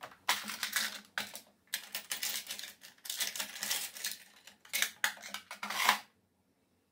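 The plastic extension table of a Singer Stylist 7258 sewing machine being pulled off the free arm, with plastic clattering and scraping in a run of irregular bursts that stops about six seconds in.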